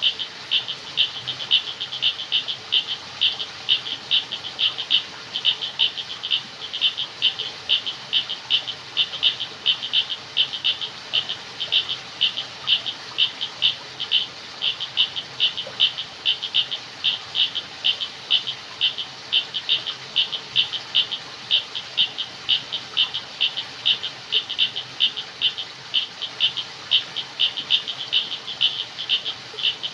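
Frogs calling at night in a steady chorus: short, high-pitched pulsed calls repeating evenly, a few a second.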